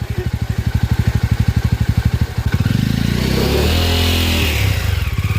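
Single-cylinder motorcycle engine running at low revs with an even beat, then revved up about halfway through and held at higher revs.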